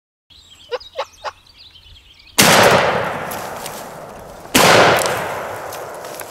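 Two shotgun shots about two seconds apart, each a sudden loud blast that echoes and fades over more than a second. Before them come three quick sharp sounds and faint songbird chirping.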